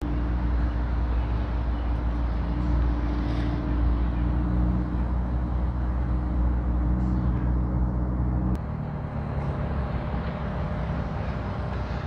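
A car engine running steadily, a low even hum that cuts off about eight and a half seconds in.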